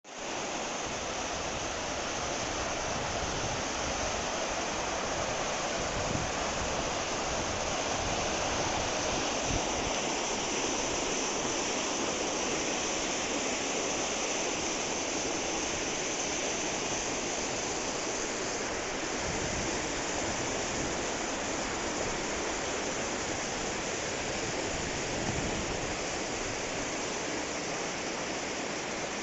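Steady rush of water from a mountain stream, cutting in abruptly.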